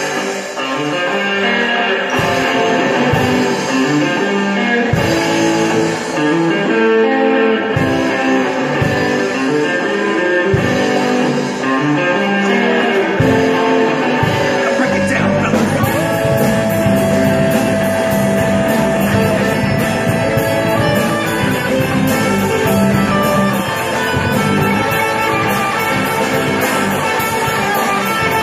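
Live rock band playing with electric guitars, bass, drums and vocals. Sparse drum hits at first, then about halfway through the drums kick in with steady cymbal strokes and a long held note rings over the band.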